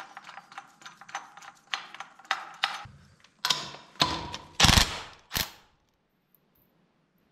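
Rapid light metallic clicking while the bracket's bolt is worked by hand, then a Makita 18V cordless impact wrench hammering the bolt tight in three or four short bursts, stopping about two seconds before the end.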